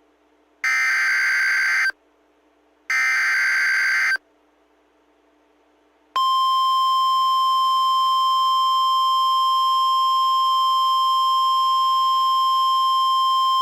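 NOAA Weather Radio Emergency Alert System (SAME) header: two one-second screeching data bursts a second apart. After a two-second pause comes the steady 1050 Hz warning alarm tone, which holds unbroken. It signals that a warning, here a severe thunderstorm warning, is about to be read.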